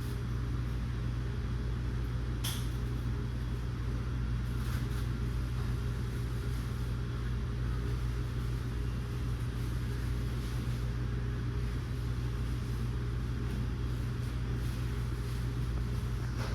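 Steady low hum with a faint hiss of moving air, from a Hunter Greenwich ceiling fan running at a constant speed, with a faint tick or two.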